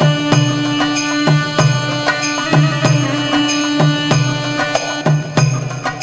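Instrumental soundtrack music with a steady percussion beat of about three strikes a second over held notes and a pulsing bass line.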